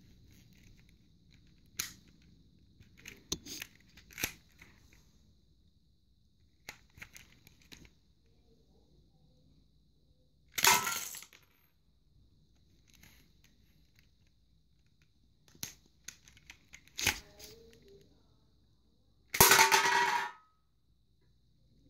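Plastic clicks from a Lego pistol's mechanism as it is cocked and fired, several single snaps spread apart. There are two loud clattering bursts of about a second each, the second near the end with a metallic ring as an aluminium drink can is knocked over onto the wooden floor.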